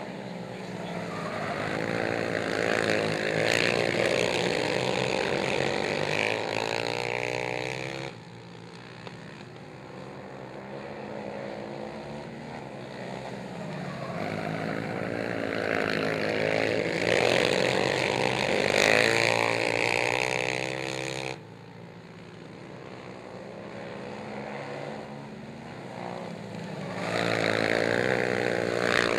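Racing ATV engines at high revs as the quads pass close by, the pitch climbing and falling and the loudness swelling with each pass. The sound drops off suddenly twice and carries on more quietly.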